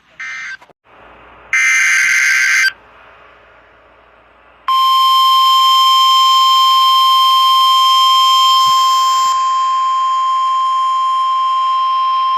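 Emergency Alert System digital data bursts: a short blip just after the start, then a harsh warbling burst of about a second, about 1.5 s in, with faint radio hiss between. About 4.7 s in, the NOAA Weather Radio 1050 Hz warning alarm tone starts, a loud steady single-pitched beep that holds to the end.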